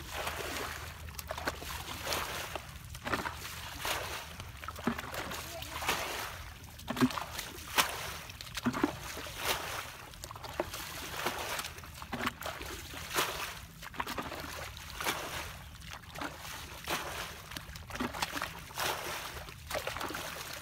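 Muddy water being bailed by hand with a plastic bucket: repeated scooping and sloshing, with water thrown out in splashes about every one to two seconds, while a hoe chops into the wet mud.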